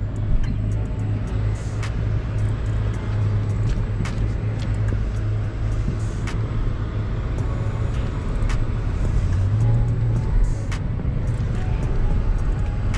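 Vehicle engine running steadily with a low hum, its pitch rising briefly about ten seconds in, with scattered light clicks and rattles.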